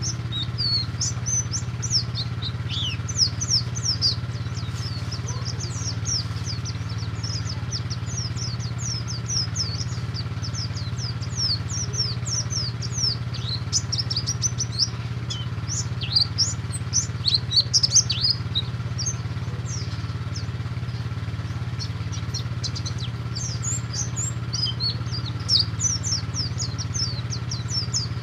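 Pleci (Oriental white-eye, buxtoni form) singing in full 'ngalas' style: a long run of rapid, high, sharply falling chirps and twitters, busiest about two-thirds of the way through. A steady low hum runs underneath.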